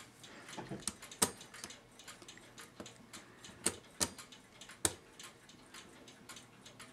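Brass parts of a c1915 New Haven tambour clock movement clicking and tapping against each other as the plates are worked together by hand and the pivots are nudged into their holes. The clicks are sharp and irregular, with four louder ones and many faint ones between.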